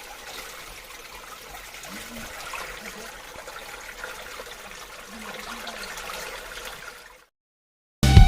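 Running water, a steady wash with faint wavering tones beneath it, cutting off abruptly near the end.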